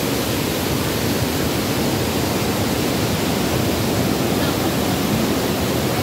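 Floodwater pouring over a reservoir dam's spillway, a steady rush of white water with no let-up.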